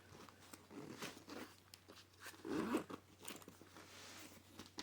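A nylon sling bag being handled: fabric rustling and small clicks, with a zipper drawn on one of its pockets.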